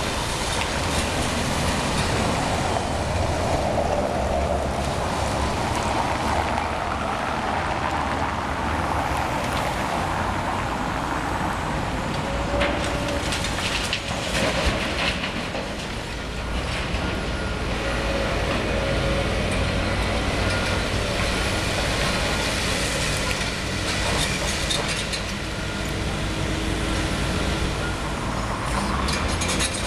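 Liebherr 954 demolition excavator working: its diesel engine runs steadily under load with hydraulic noise, broken by a few sharp knocks about halfway through and several short squeals.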